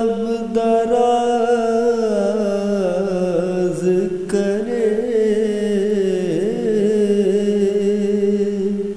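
A male voice singing an unaccompanied naat, drawing out one long note through the whole stretch. The note is ornamented with winding melismatic turns in the middle, then settles and holds.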